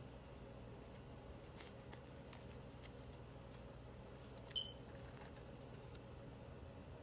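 Faint, scattered light ticks and rustles of paper being handled during journal collage work, with one sharp click about four and a half seconds in.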